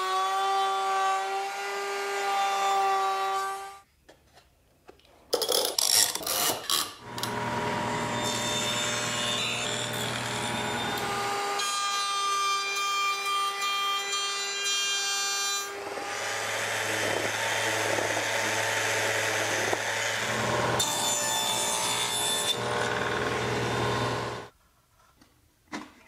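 Router table's router running at high speed and cutting mahogany box-joint pieces in several separate passes: a steady high whine with a bed of cutting noise. It drops out briefly between passes, with a few sharp clicks about five to seven seconds in.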